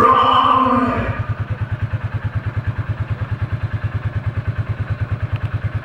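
Small 500 cc petrol engine of a child-sized sports car idling, a steady rapid putter of about nine beats a second, once music stops about a second in.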